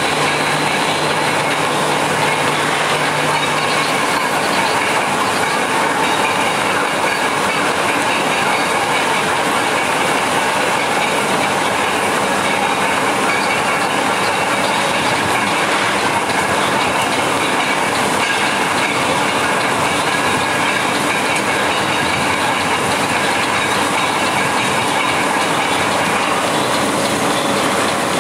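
A train running steadily on the rails: a continuous, even noise of wheels and carriages, with a low hum during the first few seconds.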